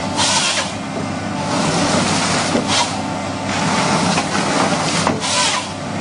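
Tracked forestry harvester running steadily with its harvester head working a tree trunk, mechanical noise throughout, with short hissing bursts about half a second in, near three seconds and around five seconds in.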